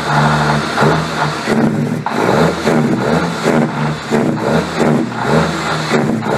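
Semi truck's diesel engine running loud through a straight vertical exhaust stack, revved up and let off over and over so its note swells and drops about once or twice a second, puffing out black smoke.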